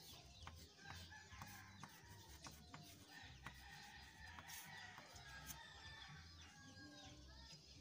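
Faint outdoor background of chickens clucking, with light ticks of chalk on a chalkboard over a low hum.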